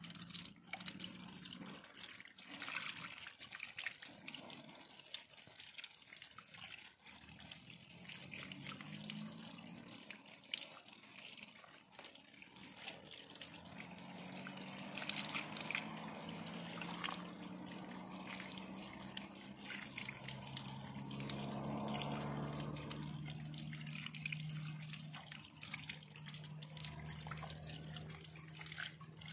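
A stream of water pouring and splashing over raw chicken pieces as hands rub and rinse the meat, with steady trickling and small splatters.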